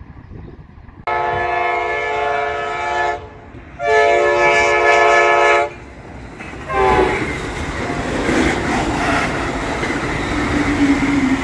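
Passenger train horn sounding two long blasts, each a steady multi-note chord about two seconds long with a short gap between them. Then an Amtrak Pacific Surfliner passenger train passes close by with the rumble and clatter of its wheels on the rails, opening with a brief tone that slides down in pitch.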